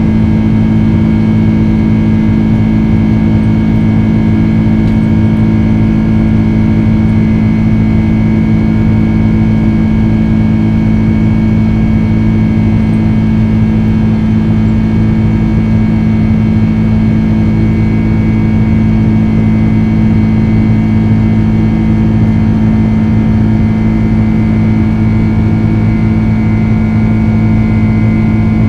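Jet airliner's engines and airflow heard from inside the passenger cabin during the climb after takeoff: a steady, loud drone with a low hum and a faint high whine that hold unchanged.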